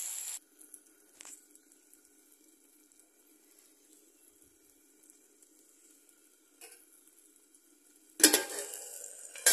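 Fiddlehead-fern greens and potato frying in oil in a kadai, with loud sizzling that cuts off abruptly half a second in. The covered pan then gives only near silence with a faint low hum and a small click or two. About eight seconds in, loud sizzling starts again suddenly.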